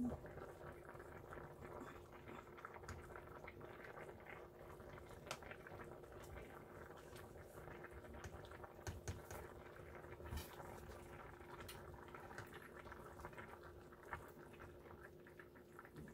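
A pot of fish broth bubbling at a steady boil on an electric stovetop, heard faintly. A ladle scrapes and clicks lightly against the pot now and then, over a faint steady hum.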